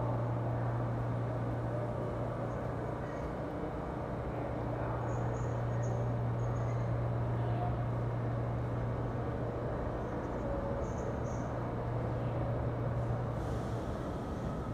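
Subway station ambience with no train present: a steady low hum under a wash of station noise, easing off near the end, with a few faint high chirps about five and eleven seconds in.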